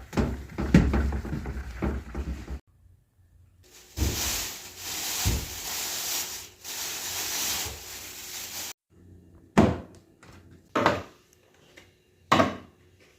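Household clatter and knocks of things being handled and set down, with a few seconds of steady hiss like a running tap in the middle, then three separate knocks near the end.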